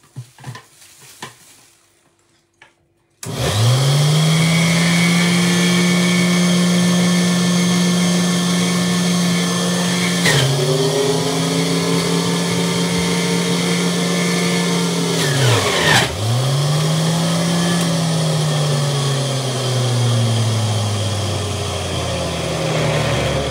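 Electric centrifugal juicer motor starting up about three seconds in, after a few light knocks, and running at a steady high whine. Its pitch drops sharply and recovers twice, then slowly sinks toward the end.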